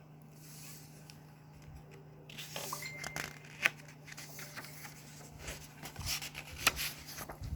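Faint paper rustling and soft clicks as the pages of a picture book are handled and turned, starting about two seconds in, over a low steady hum.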